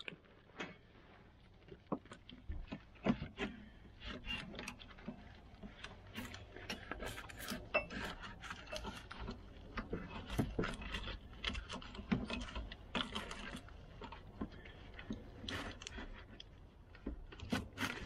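Gloved hands handling a plastic wiring-harness connector and corrugated plastic wiring loom: irregular clicks, taps and rustling.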